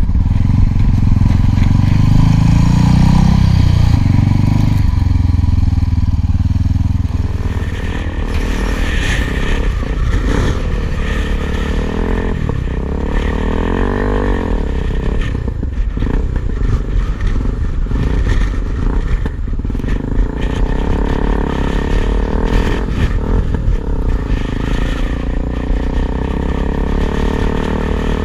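Single-cylinder four-stroke dual-sport motorcycle engine running while the bike is ridden over sand and gravel. It is loud for the first several seconds, then eases off, with the pitch rising and falling a few times around the middle.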